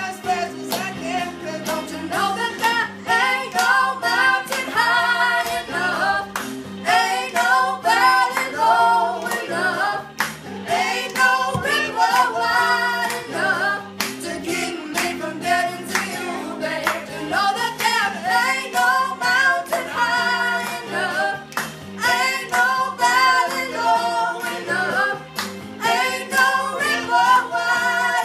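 A young man and a young woman singing a song together, with an instrumental accompaniment underneath.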